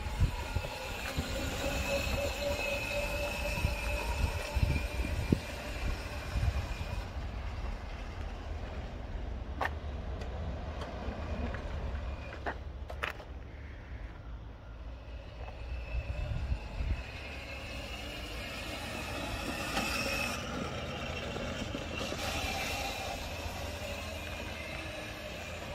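A 36 V, 800 W children's electric quad driving along the street, its electric motor whining over a low rolling rumble. The whine is clearer near the start and again near the end, and fades in between. A couple of sharp clicks come near the middle.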